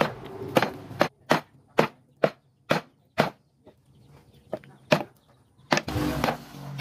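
Heavy cleaver chopping pork on a thick wooden chopping block: a steady run of hard chops, about two a second, for the first three seconds, then a few more spaced strikes.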